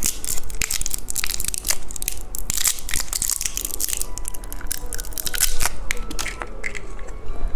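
Plastic candy packaging crinkling and crackling as it is handled and opened, in a dense run of sharp crackles.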